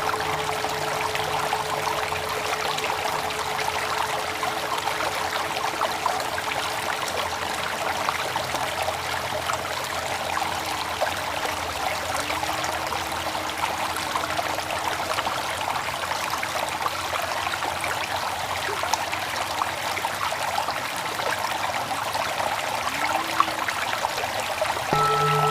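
Steady flowing water, an even rushing trickle, with a few faint soft gliding tones partway through. Background music with sustained tones comes back in right at the end.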